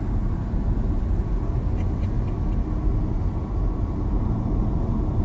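Steady low rumble of road and wind noise from vehicles driving at speed, a car alongside a quad bike (ATV) on a road.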